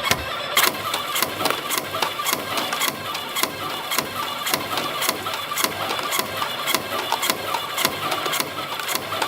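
CNC spring coiling machine running, coiling compression springs from 1.0 mm wire: a steady mechanical whirr with sharp clicks in an even rhythm, about three to four a second.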